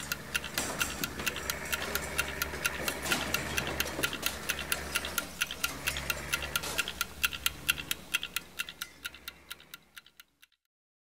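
Opening soundtrack of rapid, even clock-like ticking over a low sustained hum, fading out about ten seconds in.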